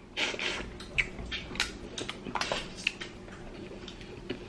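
Close-up eating noises from boiled head-on shrimp: lip smacks and sucking at the shrimp, then the crackle of shell being peeled by hand, as a string of short sharp clicks.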